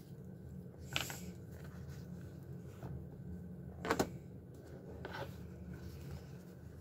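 A few sharp plastic clicks from a felt-tip marker and its cap being handled, one about a second in and a louder one about four seconds in, with a fainter one soon after, over a low steady room hum.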